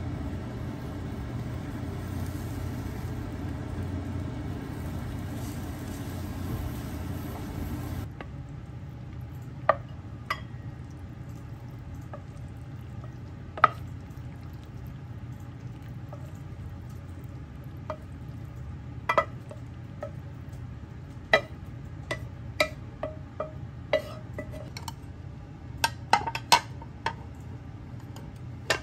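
Steady frying sizzle of egg in a rectangular tamagoyaki pan on a gas stove. After a sudden cut, there are scattered clinks and knocks: a spatula and a nonstick frying pan against a ceramic bowl, then ceramic plates being set down and handled, most often near the end.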